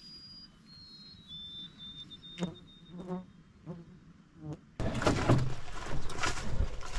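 A few faint whistled bird notes, stepping down in pitch, and several light knocks over quiet. Then, about five seconds in, loud footsteps crunching and rustling through dry brush and deadfall as a canoe is carried over a portage trail.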